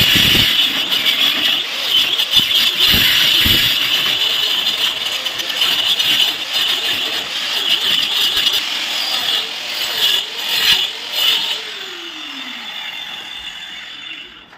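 5-inch electric angle grinder cutting a chase into a brick wall, a steady high grinding whine. Its motor note wavers under load and falls away near the end as the blade spins down.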